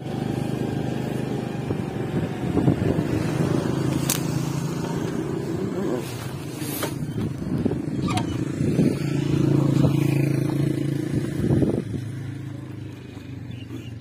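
A motor engine running steadily, its pitch wavering slightly, dying down near the end. Three sharp clicks sound over it.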